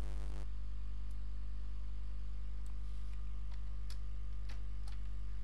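Steady low electrical hum, with a short rustle at the start and a few faint, scattered computer keyboard clicks.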